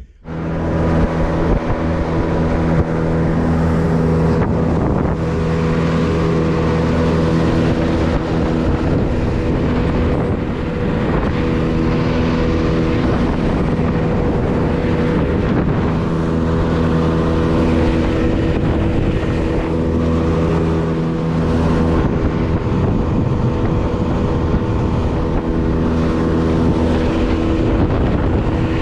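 A fishing boat's motor running steadily at speed, with water rushing past the hull and wind buffeting the microphone. The even engine note wavers briefly a couple of times.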